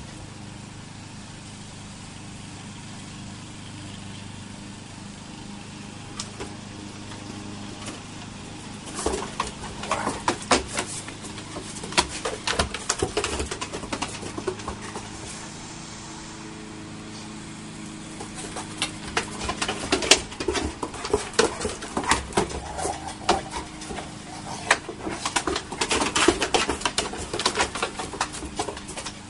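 Dogs' claws clicking and paws knocking on wooden deck boards as two dogs chase and scuffle, in bursts about nine seconds in and again from about eighteen seconds on, over a steady low hum.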